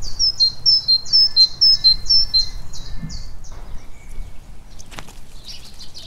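Great tit singing: a quick, high two-note phrase, the second note lower, repeated several times for about three and a half seconds, followed by fainter chirps.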